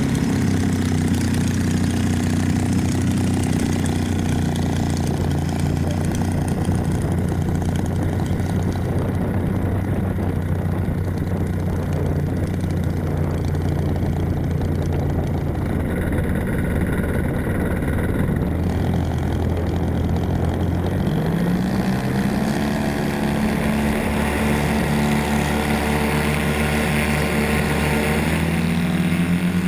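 An RC model airplane's motor and propeller, heard from on board, running steadily at low throttle as it taxis. About two-thirds of the way through it throttles up with a sharp rise in pitch for the takeoff roll. It rises again near the end as it climbs out.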